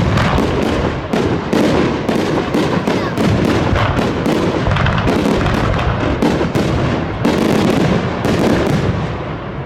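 Aerial fireworks bursting in a rapid, dense series of sharp bangs, easing off near the end.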